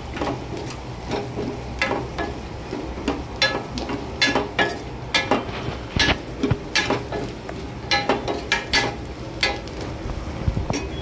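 A steel spoon stirring potato chunks and spices frying in oil in a stainless steel pan, with irregular sharp clinks and scrapes of metal on metal over a light sizzle.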